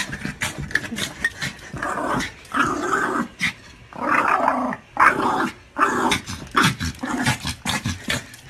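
Small dog growling in repeated rough bouts, with short sharp sounds between them.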